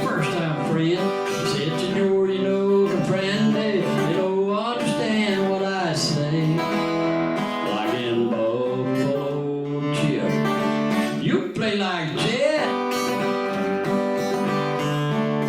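Live country song on acoustic guitar, with a man singing over the playing.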